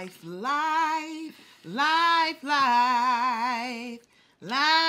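A woman singing a cappella: long held notes with a wavering vibrato, in three phrases, with a fourth beginning near the end.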